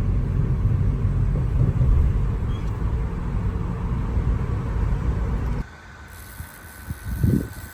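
Loud, steady low rumbling noise that cuts off abruptly about five and a half seconds in, giving way to a much quieter background with a faint steady high tone.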